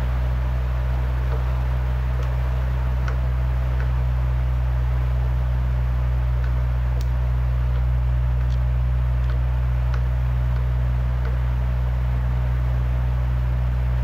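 Steady low mechanical hum, with a few faint light ticks scattered through it.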